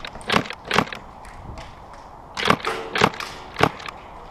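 Airsoft guns firing single shots, each a sharp crack with the clack of the gun's mechanism: two shots near the start, a pause, then a few more in quick succession about two and a half seconds in.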